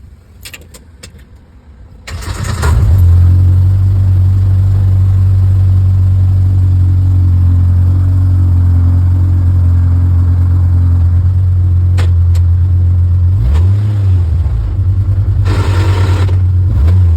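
A modified UTV's engine starts about two seconds in, after a few clicks, then runs with a steady low drone. Its pitch dips and swells a couple of times near the end, with a brief rushing noise between.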